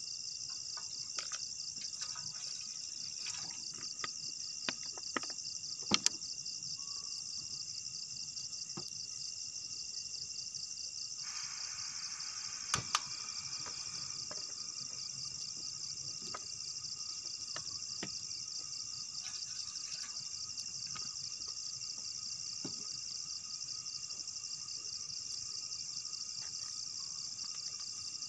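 Steady, high-pitched insect chorus trilling in a fast even pulse. A few sharp clicks or knocks cut through it, the loudest about six seconds in and again near thirteen seconds.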